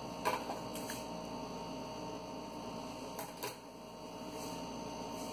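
A few faint clicks of scissors snipping small marking notches into folded fabric, over a steady low hum.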